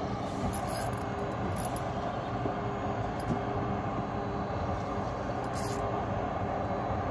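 Steady low mechanical hum of a running engine, with a few brief high hisses.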